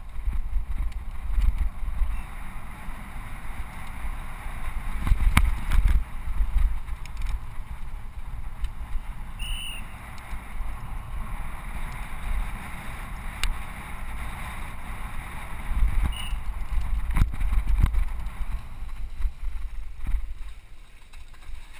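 A mountain bike riding fast over bumpy grass, heard from a helmet camera: wind buffets the microphone with a steady low rumble, and the bike rattles. A few sharp clicks come through now and then.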